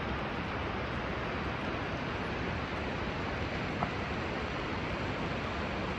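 Steady rain falling, an even hiss with no pauses, with a single sharp tap about four seconds in.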